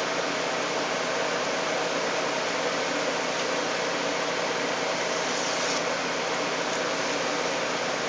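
Steady mechanical hum and hiss of a running machine, such as a fan or air conditioner, filling the room. About five seconds in there is a brief faint scratch of a blade cutting Dacron along a steel rule.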